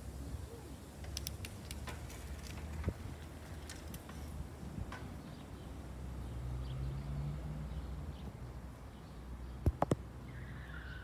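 Outdoor ambience at a quiet street crossing: a low steady rumble with scattered light clicks, a low hum for a couple of seconds past the middle, and three sharp knocks close together near the end.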